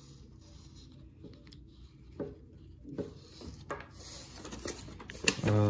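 Quiet handling noises with a few sharp, light clicks spread through, from hands working small parts. A man's voice starts near the end.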